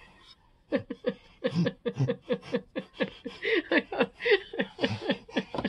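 Quick, unintelligible voice chatter in short, laugh-like syllables, about four or five a second.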